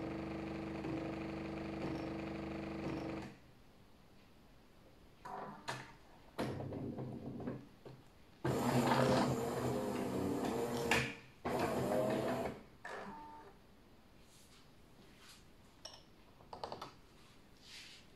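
Jura E6 espresso machine's pump running steadily as the double espresso finishes pouring, cutting off about three seconds in. After a pause the machine runs mechanically again for about four seconds as it ends the brew cycle, followed by a few light clicks of the glass cups.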